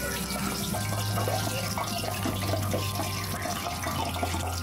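Breaded pork cutlet deep-frying in hot oil: dense, steady sizzling and crackling of the bubbling oil. A low steady hum comes in about a second in.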